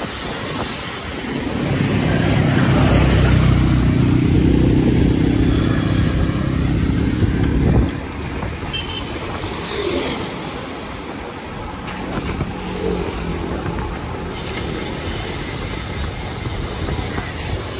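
City traffic heard from a moving bicycle: a motor vehicle engine runs loudly close by for several seconds, then drops away sharply about eight seconds in, leaving steady traffic and road noise.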